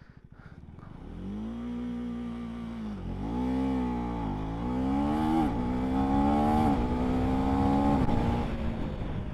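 KTM 390 single-cylinder motorcycle doing a launch-control start. The engine is held at steady revs, then launches and accelerates hard, its pitch climbing and dropping sharply three times as it shifts up through the gears. The launch was hard enough to lift the front wheel slightly.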